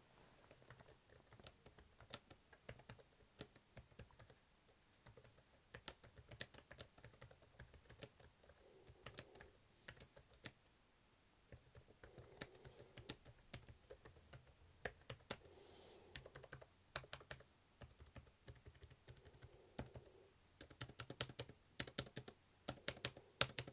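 Quiet typing on the Cherry KW 9200 Mini's low-profile chiclet keys: soft, irregular key clicks with short pauses, coming faster near the end.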